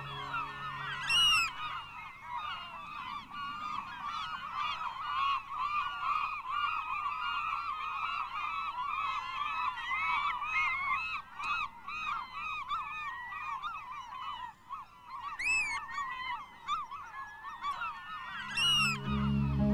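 A nesting colony of gulls calling, a dense chorus of many overlapping short calls, with a few louder calls standing out about a second in and twice near the end.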